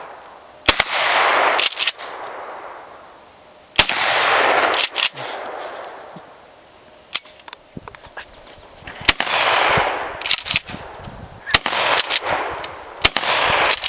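Pump-action shotgun firing slug rounds: several loud shots a few seconds apart, each trailing a long rolling echo, with shorter sharp cracks in between.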